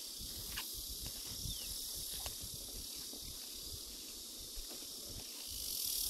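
Steady high hiss of outdoor background, with a few faint scattered ticks.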